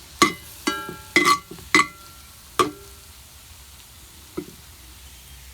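Bayonet blade scraping and clinking against a metal pan, about five ringing strikes in quick succession, then one softer tap, over a faint steady sizzle.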